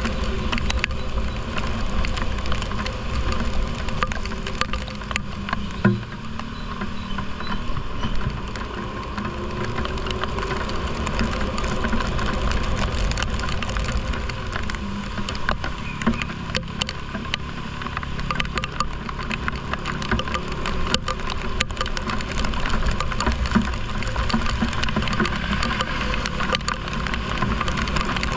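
Heavy rain falling steadily, with many drops ticking close by over a low rumble.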